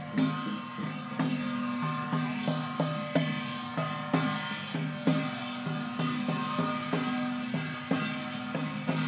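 Chinese procession percussion: drums, gongs and cymbals struck in a repeating rhythm over a sustained low tone.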